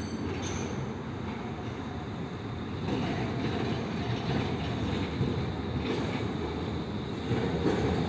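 Tram rumbling along its rails through a curve as it comes toward the listener, getting louder about three seconds in and again near the end.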